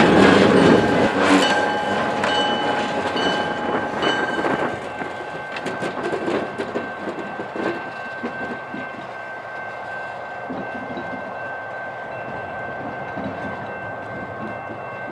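Freight cars rolling past, their wheels clacking over rail joints, loud at first and then dying away over the first five seconds as the train slows to a stop. A thin, steady high-pitched squeal carries on throughout.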